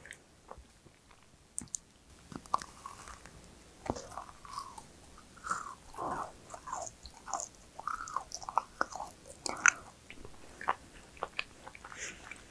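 Biting into a macaron and chewing it, with many small crisp crackles from the shell. The chewing comes thicker from about halfway through.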